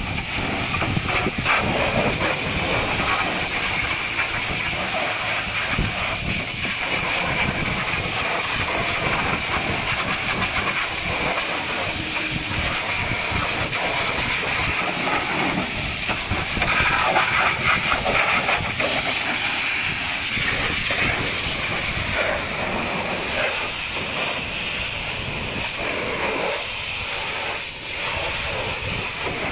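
High-pressure washer jet spraying water against a truck's front wheel, tyre and wheel arch: a loud, steady hiss with a high whine running through it.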